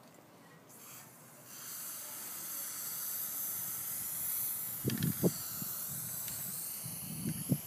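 Aerosol spray-paint can hissing steadily as paint is sprayed onto a skateboard deck, starting about one and a half seconds in. A few short low knocks come around five seconds in and again near the end.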